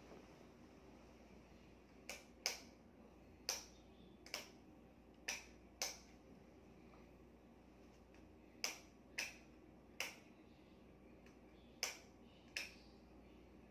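A series of sharp snapping clicks, about eleven at uneven intervals, several in pairs about half a second apart, over a quiet room.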